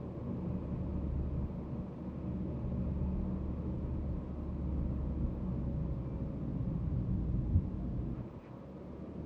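Steady low engine and road rumble of a moving car, picked up by a dash cam inside the cabin. There is a single brief knock about seven and a half seconds in, and the rumble eases off briefly near the end.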